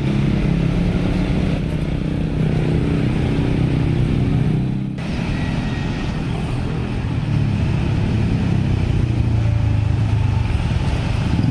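Dense motorcycle and car traffic moving slowly over a level crossing: many small engines running together in a steady hum, with a brief break about halfway through.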